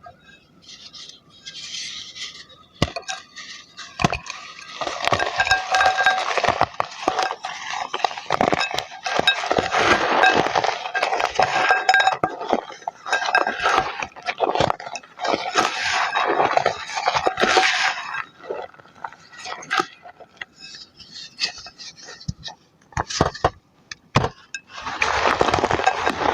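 Chalk being crushed and crumbled: dense crunching and crackling in long bursts, with a few separate snaps at first and again in a lull past the middle.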